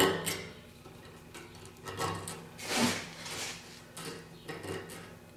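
Short, irregular metal scrapes and knocks: a 1/8-inch round chainsaw file being set into and run against the hole of a steel gopher-trap trigger clamped in a vise.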